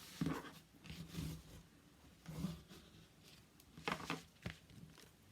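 Paper and cardstock being handled, folded and rubbed down: scattered short rustles and scrapes, the loudest about four seconds in.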